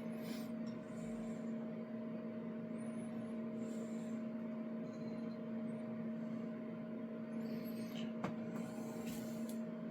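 Steady electrical hum, with faint rustles of handling and a single light click about eight seconds in.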